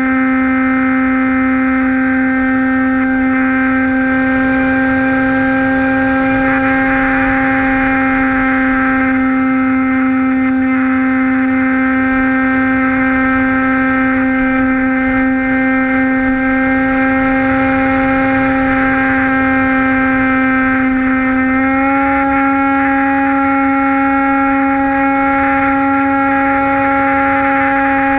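Model airplane's motor and propeller running with a steady hum, over rushing wind; the pitch steps up slightly about 22 seconds in.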